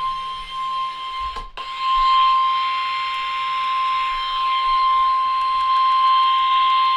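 NOAA Weather Radio warning alarm tone: a single steady high-pitched tone near 1050 Hz over radio hiss. It cuts out for an instant about a second and a half in. The tone signals that a warning broadcast is about to begin.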